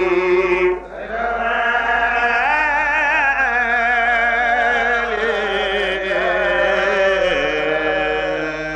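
A voice chanting an Arabic devotional poem (a qasida) in long, drawn-out melismatic notes with vibrato. There is a brief break about a second in before the next long phrase.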